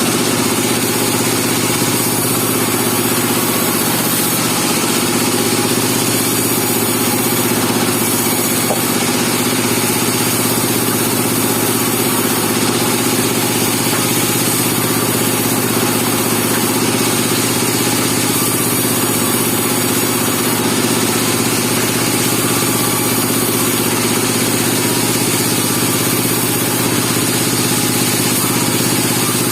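Bandsaw sawmill's engine running steadily at a constant speed.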